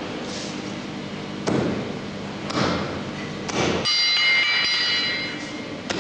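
Hammer blows on a fish held with tongs on a blacksmith's anvil, about four strikes a second or so apart. One strike about four seconds in is followed by a metallic ringing lasting over a second. A steady low hum underneath stops abruptly at that point.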